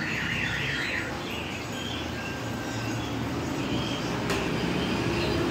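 Busy street-stall ambience: a low steady hum of traffic and crowd, with short high chirps and a sharp click about four seconds in.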